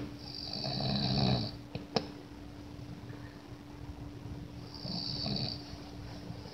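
A man snoring loudly in his sleep: two long snores about four seconds apart, with a sharp click about two seconds in, over a faint steady hum.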